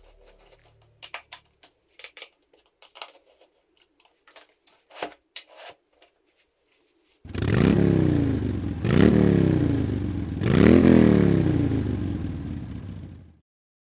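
Light clicks and taps of a motorcycle's windscreen and its adjuster bracket being handled. Then the Suzuki V-Strom 1050XT's V-twin engine is revved three times, each rev rising sharply in pitch and falling back, before it cuts off.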